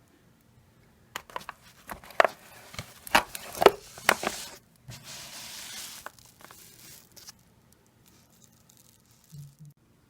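Seedling pots being handled and set down: a run of sharp knocks and clatters, then a stretch of rustling.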